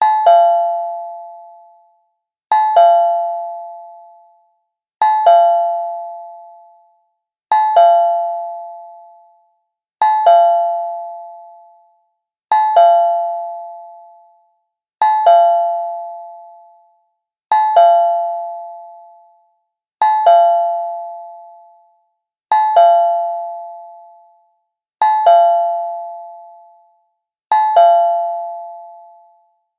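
Cartoon doorbell sound effect: a two-note chime struck in quick succession, ringing twelve times at an even pace of about one every two and a half seconds, each ring fading out over about two seconds.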